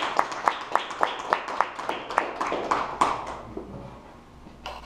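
A few people clapping, about four to five claps a second, fading out about three and a half seconds in.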